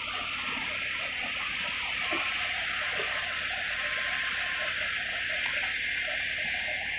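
Steady rush of water with some bubbling and splashing underneath.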